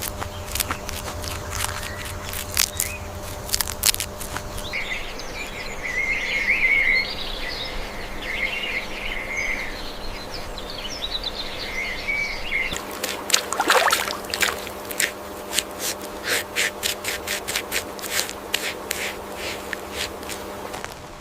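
Rapid irregular clicks and taps, giving way about five seconds in to a run of high chirping, squeaking calls, then clicks and taps again for the second half; a faint steady hum lies underneath.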